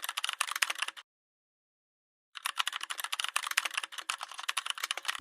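Rapid, dense clicking and tapping in two stretches, with a dead-silent gap of over a second between them; both stretches cut off abruptly.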